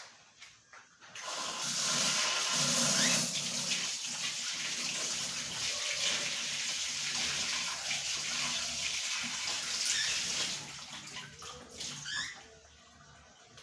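Water running from a tap into a sink. It starts about a second in and stops at about ten seconds. A few short rising squeaks follow near the end.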